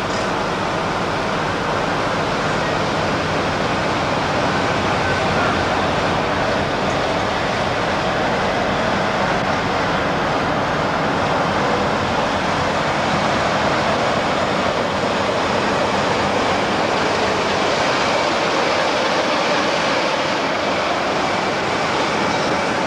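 BR Class 45 'Peak' diesel locomotive's Sulzer engine running as it hauls a train past at low speed, with a steady noisy rumble throughout.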